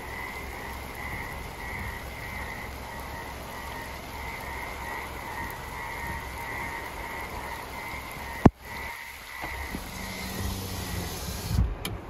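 A frog chorus croaking steadily in a dense, pulsing mass of calls, as after heavy monsoon rain. It cuts off with a sharp click about two-thirds of the way through. After that a low engine hum and a few knocks are heard from inside a car near the end.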